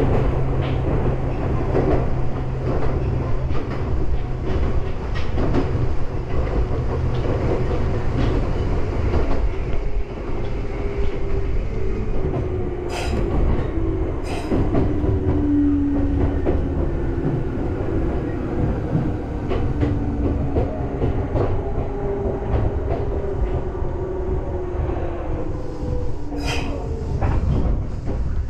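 Meitetsu electric train running, heard from inside the driver's cab: a steady rumble with the clack of wheels over rail joints and a few sharp clicks. From about a third of the way in, a whine falls slowly in pitch as the train slows, nearing a station.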